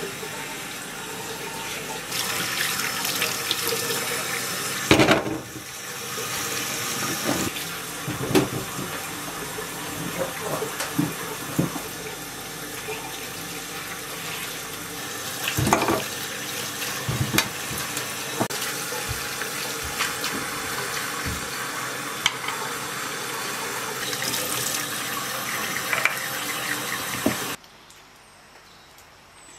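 Kitchen tap running into a stainless-steel sink and metal bowl while produce is washed by hand, with splashing and scattered clatters. Near the end it cuts off suddenly to a much quieter background.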